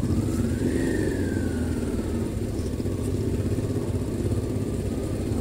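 Onboard sound of a Honda V-twin adventure motorcycle riding at an even pace, engine running steadily. A faint high whine rises and falls away in the first couple of seconds.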